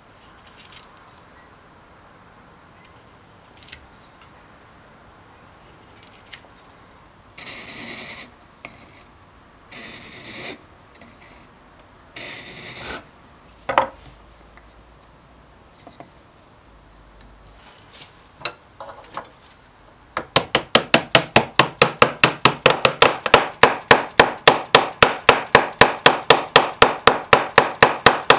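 Hand work on a wooden tool handle: a few short scraping cuts and light clicks of a knife on wood, then, about two-thirds of the way through, a fast, even run of sharp taps at about five a second.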